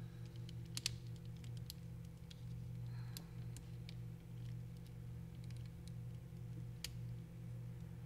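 Small plastic clicks and taps from the Xbox One controller's shell parts being handled and pressed into place, a handful of sharper clicks about a second in and near the end, over a low steady hum.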